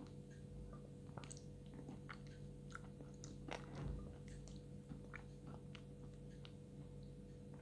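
Close-miked chewing and crunching of edible chalk and clay paste, with faint scattered crackles of the mouthfuls and a spatula scraping the block. The loudest crunch comes about halfway through.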